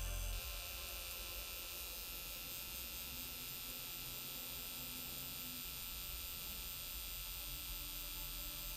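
Permanent-makeup tattoo pen buzzing steadily as its needle cartridge works pigment into the lip.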